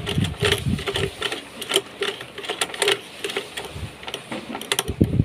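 Household Singer treadle sewing machine turned by hand at the handwheel, stitching slowly through stretch cotton: uneven mechanical clacking, about two or three strokes a second, loudest near the end.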